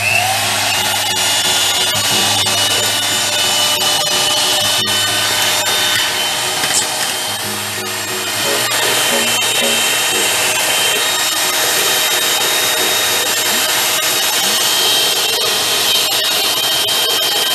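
Electric hand mixer running steadily, its twin beaters whipping a creamy mixture in a plastic bowl; the motor's whine rises as it spins up at the start. Background music plays under it.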